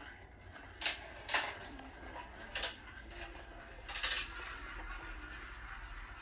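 A marble running through a homemade marble run, clacking against the track in four sharp knocks at uneven intervals, the last a short rattle.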